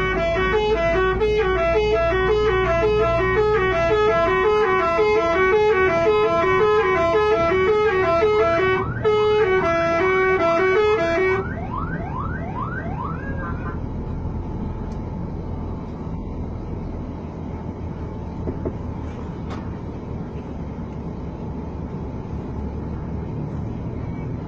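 A bus's 'telolet' multi-tone musical horn playing a fast, repeating jingle of stepped notes for about eleven seconds, then cutting off suddenly. Low engine and traffic rumble runs underneath and continues after the horn stops.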